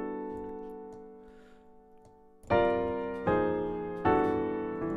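Piano playing an E minor 11 chord voiced in stacked thirds (E, G, B, D, F♯, A), left ringing and fading for about two and a half seconds. Chords are then struck three times, about a second apart.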